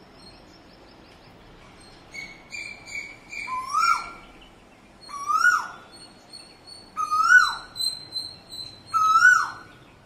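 Backyard birds calling: a loud whistled call, rising and then falling, repeats four times about every two seconds, with short high chirps in between.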